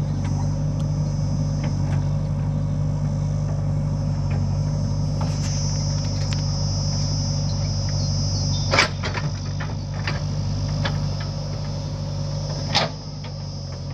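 A diesel engine of the tractors or backhoe running steadily, with two sharp knocks, the first about two-thirds of the way through and the second near the end, after which the sound drops a little.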